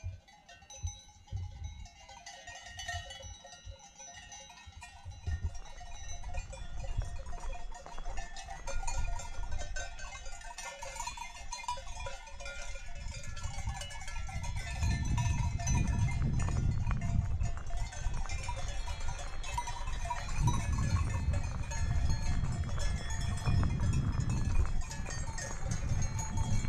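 Many cowbells clanking and ringing unevenly, their tones overlapping. A low rumble comes in about halfway through and grows louder.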